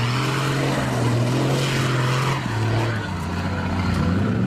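Off-road jeep engine running, its pitch sinking a little about two and a half seconds in and climbing again near the end.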